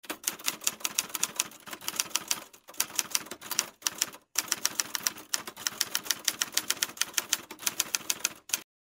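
Typewriter key-click sound effect laid over on-screen text as it types out: a rapid, even run of clicks, several a second, with two short breaks, stopping abruptly near the end.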